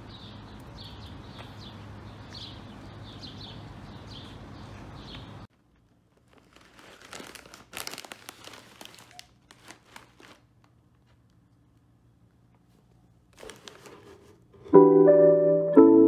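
Steady background noise with repeated high chirps for about the first five seconds, cut off abruptly. Then a plastic bag of tortilla chips crinkles as it is handled. Piano music starts near the end and is the loudest sound.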